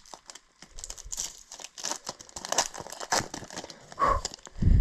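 Foil hockey card pack wrapper crinkling and tearing as it is ripped open, in many short irregular crackles. A dull thump near the end.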